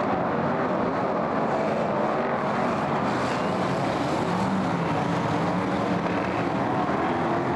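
A pack of BriSCA F1 stock cars' V8 engines running hard together at race speed, a steady, dense engine drone with no let-up.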